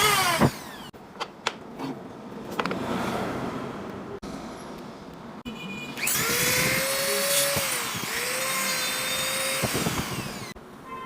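Power sander sanding CNC machining marks off a workpiece. Its whine winds down about half a second in, a few light clicks and a soft rasping follow, then it starts up again about six seconds in with a steady whine that sags briefly in pitch under load and stops near the end.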